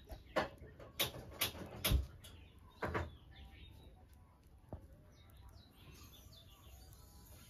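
About five short knocks or clicks in the first three seconds, the loudest near two seconds in. Faint bird chirps can be heard in the background.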